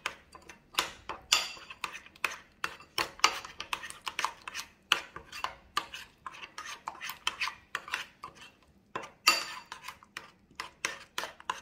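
Metal spoon stirring thick spiced yogurt in a ceramic bowl, with irregular clinks and scrapes against the bowl's sides as it is mixed into a smooth paste. There is a short lull about eight seconds in, then a sharper clink.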